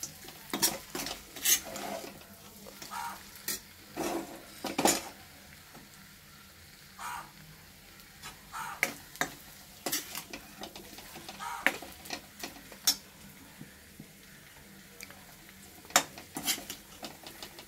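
Steel ladle scraping and clinking against a dark iron kadai in irregular strokes while stirring chicken masala frying in oil, with a faint sizzle between strokes.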